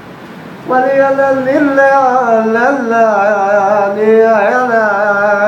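A man singing a long, wavering, ornamented melody without clear words, starting after a brief pause under a second in.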